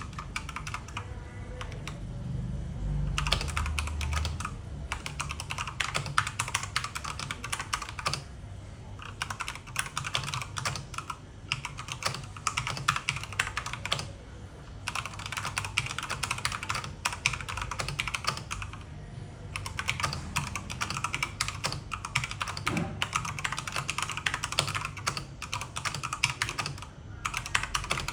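Typing on a Dareu EK810G mechanical keyboard with red switches: fast, steady runs of key clicks broken by short pauses.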